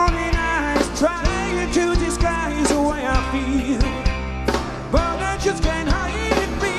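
Live pop band playing: a male lead vocal over electric bass guitar and a drum kit, with steady drum hits through the whole passage.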